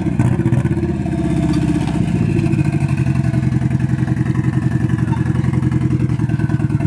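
Nissan SR20 four-cylinder engine sounding straight out of an open downpipe, with a loud, steady, rapid pulsing beat. The owner suspects it may be misfiring.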